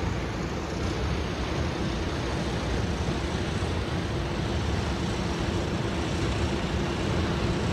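Steady drone of offshore oil platform machinery: a constant low hum held under an even rushing noise of wind across the open deck.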